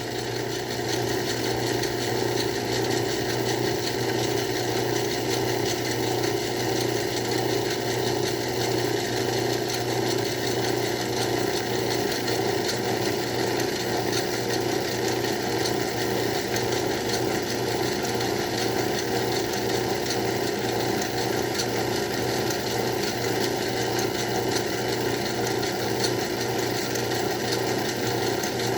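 Craftsman 109 lathe running steadily under power while a 1/2-inch drill bit is fed into the workpiece from the tailstock: an even mechanical whir that does not change.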